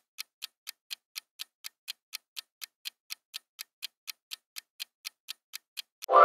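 Quiz countdown-timer sound effect: a clock ticking evenly, about four ticks a second, while the time to answer runs out. The ticking stops just before the end, where a loud musical sting starts for the answer reveal.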